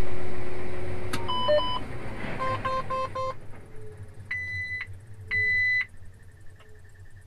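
Tractor cab warning beeps as the tractor is shut down: a short two-tone chirp, then four quick beeps, then two longer, higher beeps. Under them the engine hum dies away and the cab grows steadily quieter.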